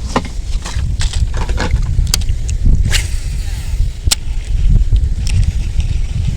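Strong wind buffeting the microphone in a steady low rumble, with a few sharp clicks and ticks scattered through it.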